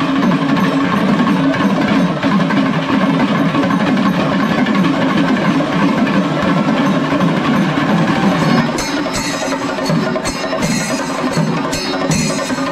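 Kerala temple-festival percussion ensemble playing: chenda drums beaten with sticks under a dense wash of sound, with sharp clashing cymbal strikes coming through more clearly from about nine seconds in.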